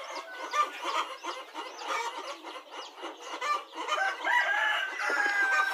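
Young chicks peeping and chickens clucking, with a rooster crowing in one long, held call from about four seconds in.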